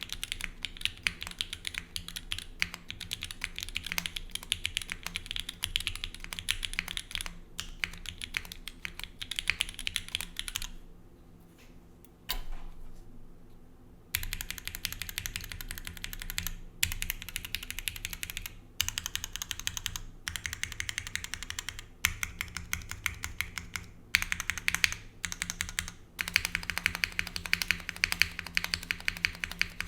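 Bias TKL mechanical keyboard with Gateron Black KS3 linear switches on an aluminium plate with no foam, under GMK keycaps: rapid continuous typing. It pauses for about three seconds a little before the middle, with one lone knock in the gap, then resumes.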